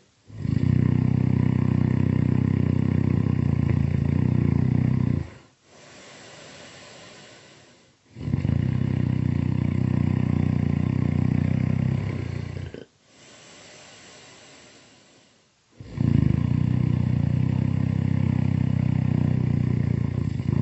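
Loud snoring in a slow, even rhythm: three long, rattling snores of about four seconds each, with quieter breathing between them.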